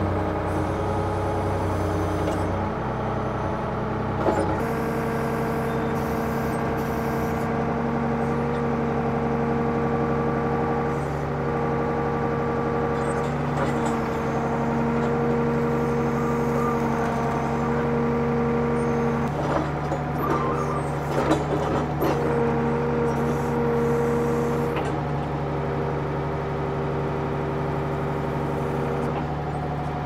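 Old backhoe's engine running steadily under load, its revs rising about four seconds in, with a higher whine that cuts out and comes back several times as the machine is worked. A few knocks and rattles come past the middle.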